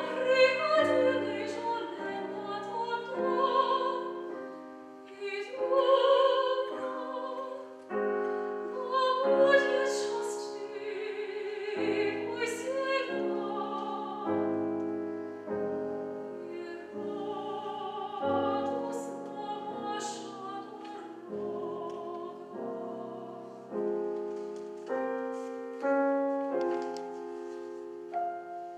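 A female classical singer sings an operatic line with wide vibrato, accompanied by piano.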